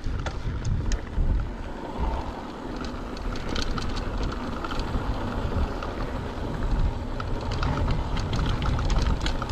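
Mountain bike rolling down a dirt trail: tyres crunching over dry ground, with many short clicks and rattles from the bike over bumps, under the low rumble of wind on the action camera's microphone.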